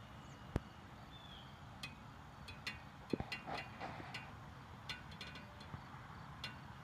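Faint outdoor background with a scattered series of short, sharp high ticks and chirps, and a couple of brief soft knocks.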